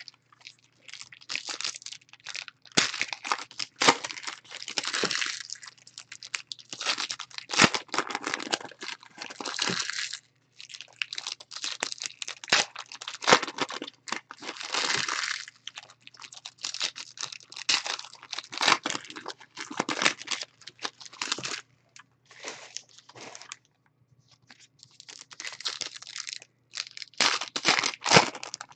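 Foil trading card pack wrappers being torn open and crinkled by hand, in irregular bursts of rustling with short pauses between packs.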